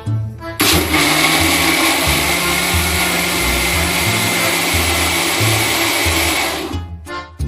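A small motor whirring loudly and steadily with a faint high whine, starting about half a second in and cutting off about a second before the end. Background music with a bass beat plays underneath.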